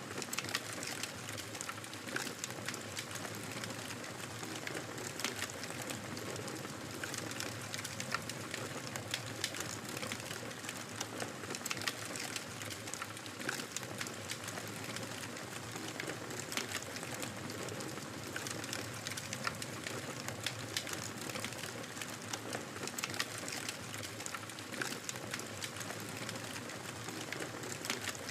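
Fire in a fireplace crackling steadily: a constant hiss full of small, sharp pops and snaps scattered throughout.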